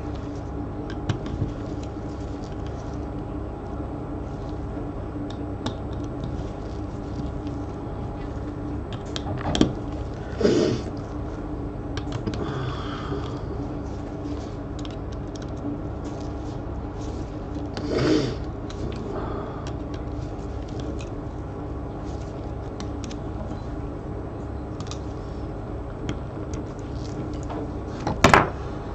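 Light clicks and taps of small tools and parts being handled while an iPhone 6 is taken apart, with a few louder knocks, over a steady low hum.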